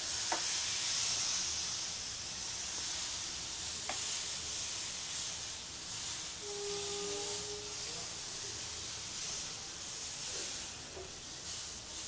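Rice-flour and egg batter sizzling with a steady hiss as it is drizzled in thin lines onto a hot, oiled tawa.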